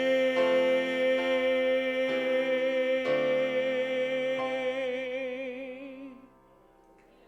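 The last word of a song is held as one long sung note over sustained accompaniment chords, which change several times beneath it. The note takes on a widening vibrato and fades out about six seconds in.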